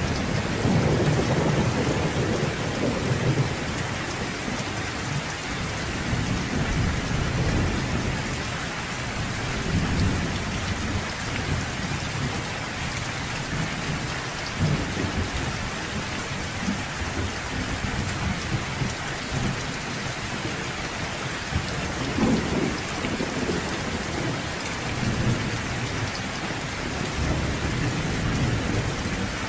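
Steady rain falling in a thunderstorm, with low rolls of thunder swelling and fading in the first few seconds and again around the middle and two thirds of the way through.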